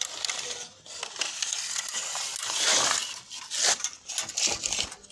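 Close handling noise on a wooden sofa frame: rough rubbing and scraping with irregular light knocks and clicks. A louder rough rustle swells about two and a half to three seconds in.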